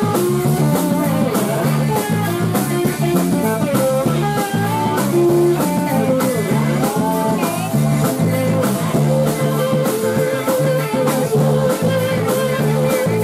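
Zydeco band playing live: electric guitar, piano accordion, bass and drums in an instrumental passage. A lead line with bent notes runs over a steady, pulsing bass, and about nine seconds in it gives way to a quick repeated figure.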